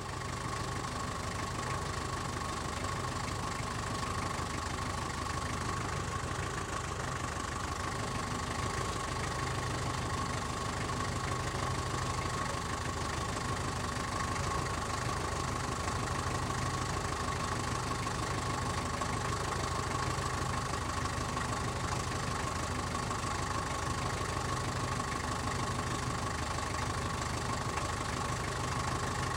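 Taxi's engine idling, heard from outside the car: a steady low rumble with a constant high-pitched whine running through it, unchanging throughout.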